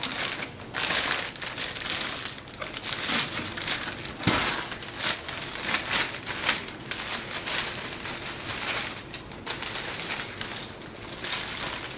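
Clear plastic bag crinkling and rustling in irregular bursts as the foam fuselage of an RC jet is worked out of it.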